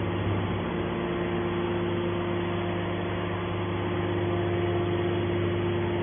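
Hydraulic power unit of a Y81/T-4000 scrap metal baler running steadily while its cylinder swings the baler's top lid open: a constant low hum with a steady whine that fades out near the end.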